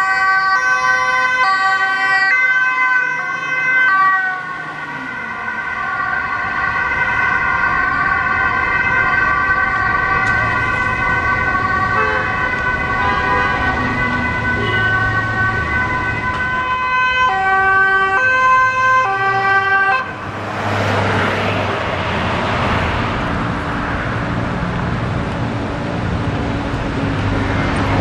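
Dutch emergency vehicles' two-tone sirens, several sounding at once, over engine and traffic noise. About twenty seconds in the sirens stop abruptly, leaving a passing-traffic rush and a low engine hum.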